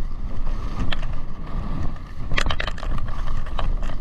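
Skiing downhill: a steady low rush of wind buffeting the microphone over the sound of skis running on snow, with a few short scrapes or clacks.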